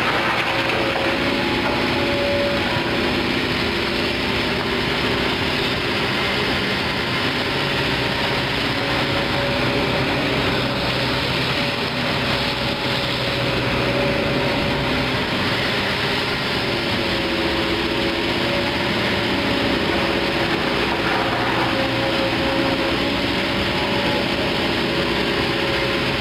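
Kobelco SK200 hydraulic excavator's diesel engine running steadily under working load as the machine swings its boom and bucket over a soil pile, with a steady tone held through the engine sound.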